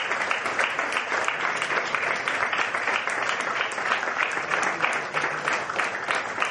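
Audience applauding, many hands clapping together at once.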